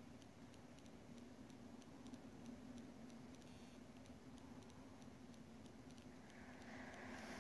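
Near silence: the room tone of a large hall, a faint steady hum with faint regular ticks a few times a second, and a light hiss coming up near the end.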